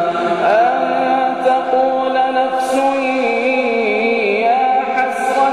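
Male Quran reciter chanting in melodic maqam style, holding the long drawn-out final vowel of 'yā ḥasratā' and ornamenting it with a wavering, rising and falling pitch, under a heavy added echo.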